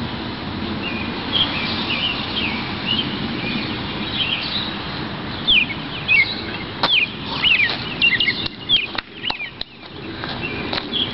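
Small songbirds chirping repeatedly in short, quick calls over a steady outdoor hum. In the second half comes a run of sharp clicks, about a half-second apart.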